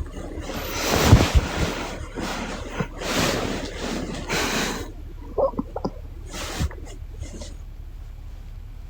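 A woman snoring in her sleep: a snore with a low rattle about a second in, then two noisy breaths, then quieter breathing.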